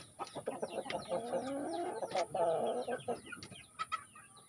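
Young chickens calling: two drawn-out pitched calls, the first about a second long and the second shorter, with scattered short clicks and taps between them.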